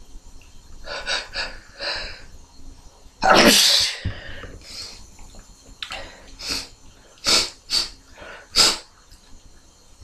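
Repeated sneezing. A few quick breaths lead up to one long, loud sneeze about three seconds in, followed by a string of shorter, sharp sneezes, three of them loud near the end.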